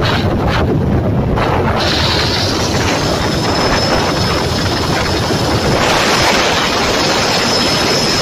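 Firefighting helicopter in flight, recorded from on board: a steady loud rush of rotor and engine noise mixed with wind over the microphone. A thin, steady high whine comes in about three seconds in.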